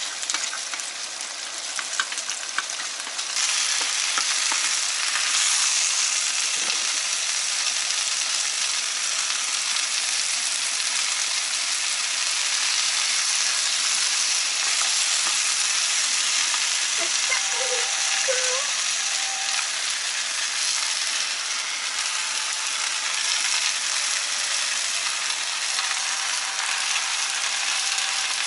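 Sliced onion, potato and carrot sizzling as they are stir-fried in a stainless steel pot, with a wooden spatula stirring and scraping through them. The sizzle gets louder about three seconds in and then holds steady.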